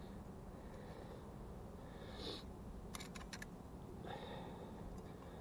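A man sniffing twice, with a quick run of light metal clicks about three seconds in as a metal canteen cup is set onto tent stakes over a small fire. A low wind rumble runs underneath.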